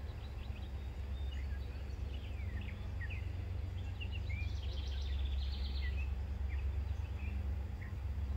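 Songbirds chirping and singing, with a quick trill about halfway through, over a steady low rumble.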